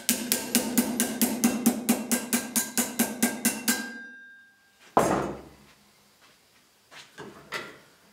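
Rapid hammer taps, about six a second for nearly four seconds, each with a short ringing tail. Then a single heavier knock, and two lighter knocks near the end.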